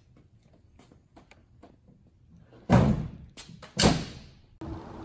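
Hinged bedside panel of a Ford F-250 tool truck swung down and slammed shut: two loud bangs about a second apart, after light clicks and footsteps. Near the end the sound cuts to a steady hiss with a low hum.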